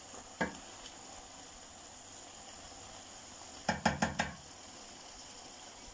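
A wooden spatula stirring grated carrots in a non-stick karahi. It knocks against the pan once about half a second in and four times in quick succession about four seconds in, over a faint steady sizzle as the milk in the carrot mixture cooks off.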